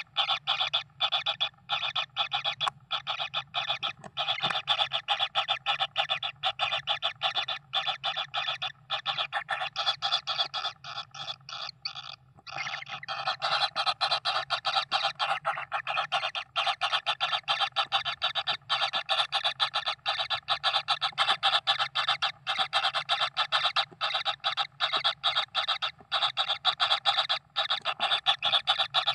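Rapid, evenly pulsing raspy animal calling that carries on without a break except for a brief drop about twelve seconds in.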